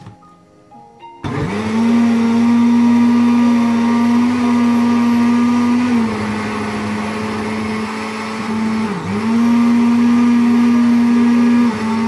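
Countertop electric blender running, mixing milk, sugar, chocolate and cocoa into a thick chocolate sauce. The motor starts about a second in with a steady hum, drops in pitch around the middle, dips briefly, comes back up and then winds down just before the end.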